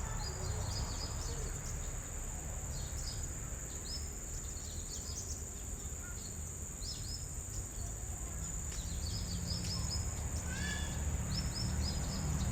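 Blue-crowned hanging parrots (serindit) giving short, high-pitched chirping calls in quick clusters, over a steady high whine and a low rumble.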